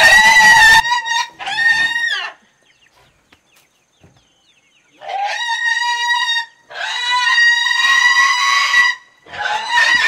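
A pig squealing loudly as it is caught and held by its legs. Two squeals at the start, a pause of about two and a half seconds, then three long, high squeals one after another.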